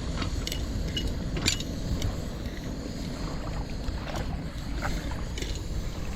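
Popcorn kernels popping without oil, as scattered sharp pops about once a second, over a steady low rumble of wind.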